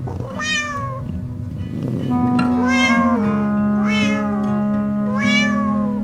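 A cat meowing four times, each call bending in pitch, over background music with sustained held notes.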